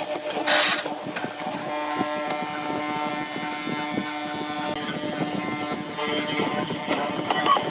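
An electric power tool's motor running steadily with a buzzing hum, with a short noisy burst about half a second in.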